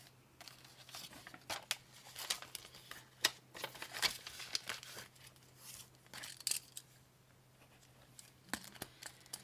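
Paper banknotes and plastic binder pouches rustling and crinkling in short irregular bursts as cash is handled and a binder page is turned. The bursts are busiest in the first six seconds and thin out near the end.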